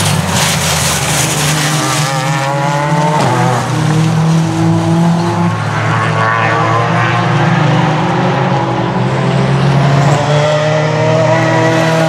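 Several racing cars' engines at high revs, their notes rising through the gears and falling as they pass. In the first two seconds a harsh hiss sounds as one car runs wide across the dirt verge.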